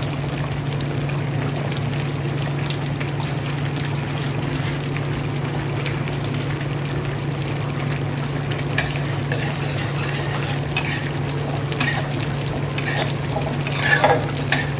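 Ghee sizzling in a kadai as fennel seeds temper in it, over a steady low hum. From about nine seconds in, a spoon scrapes and clinks against the pan several times.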